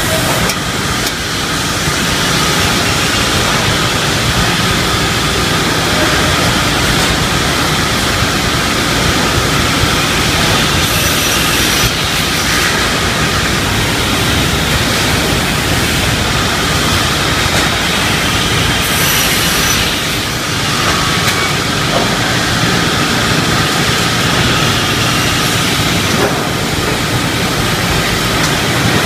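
Pallet-board ripping saw machine running steadily with a loud, even mechanical noise, a sharper hiss rising twice for about a second.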